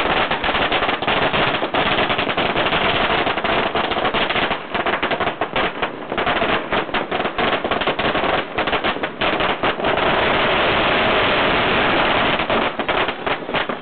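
A long string of firecrackers going off in rapid, continuous cracks. The bangs merge into an unbroken crackle about two-thirds of the way through, then thin out near the end.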